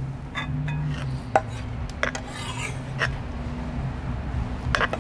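Metal spoon stirring couscous in a stone bowl, scraping and clicking against its side several times. A knife scrapes diced squash into the bowl, over a steady low hum.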